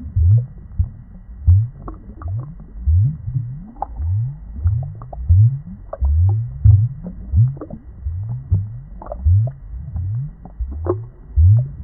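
Aquarium water bubbling: a steady run of deep gurgles, each a short rising glide, about one or two a second, with faint ticks above them.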